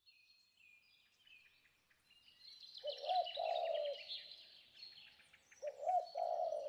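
Birds chirping and trilling in high notes, with a louder, lower call of arching notes that comes twice, about three seconds apart.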